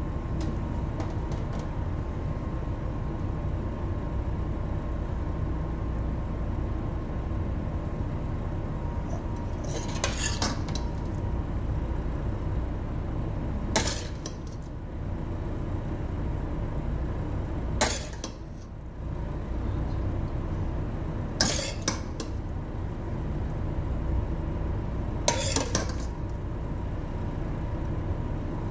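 A metal spoon clinking against a metal cooking pan, five sharp knocks about every four seconds starting about ten seconds in, over a steady low hum.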